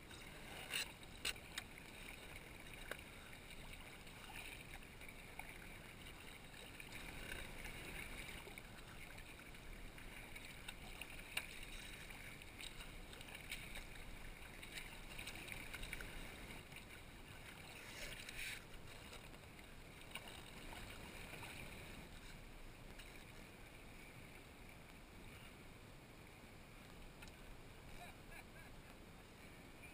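Sea kayak paddling through choppy water: quiet, steady splashing and lapping against the hull as the paddle blades dip, with a few sharper splashes about a second in.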